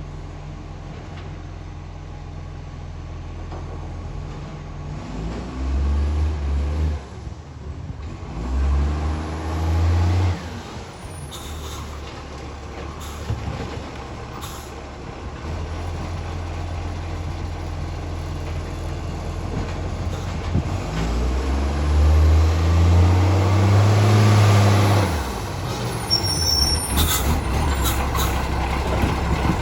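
Recycling garbage truck's diesel engine running with an exhaust leak, idling steadily and revving up three times, each time held for a second or few and then dropping back, the longest near the end. A few short sharp hisses or clicks come between the revs.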